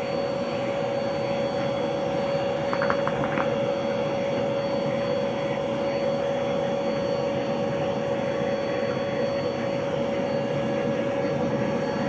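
Hoover vacuum cleaner running steadily with a constant whine as its nozzle is worked over a dog's coat. A few short clicks about three seconds in.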